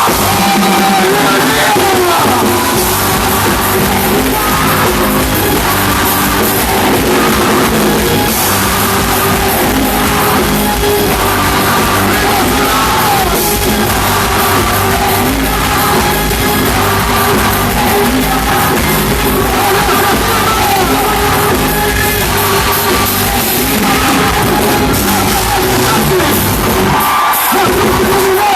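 Loud music with a singing voice over it and yelling voices mixed in. The low end drops out briefly near the end.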